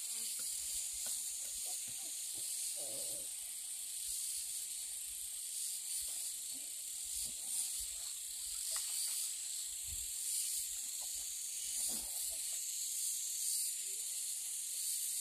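Steady high-pitched hiss of an insect chorus, with a few faint short knocks and scattered faint sounds beneath it.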